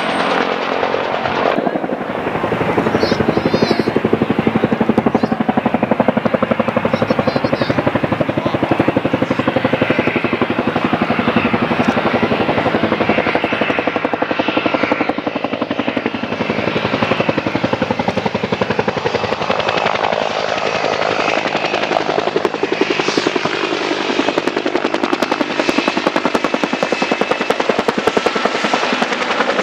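AH-1W Super Cobra attack helicopter in flight, its rotor blades beating in a rapid, steady rhythm over the engine noise.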